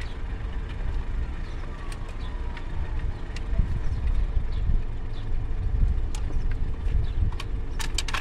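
Light clicks of plastic spark plug wires and the distributor cap being handled, with a quick run of clicks near the end, over a steady low rumble.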